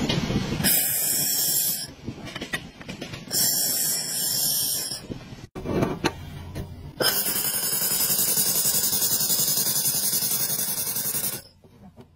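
Handheld laser welder firing on steel: two short hissing bursts in the first five seconds, then a long steady buzzing hiss of about four seconds that cuts off sharply as it runs a butt weld between two steel plates.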